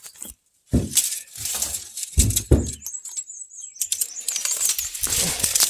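Crunching, crackling footsteps over brush and debris, with low thuds on the microphone. A brief run of high chirps about halfway through.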